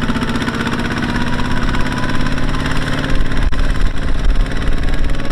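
Engine of a heavy earthmoving machine running steadily, an even low pulsing chug that holds one pitch.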